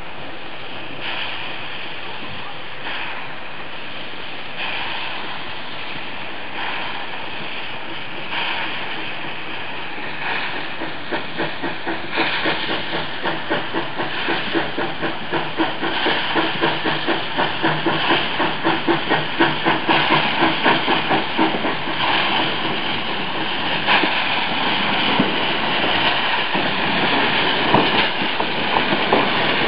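Metre-gauge steam tank locomotive hauling a passenger train, its exhaust chuffing with steam hiss. The beat grows denser and louder as the engine draws near.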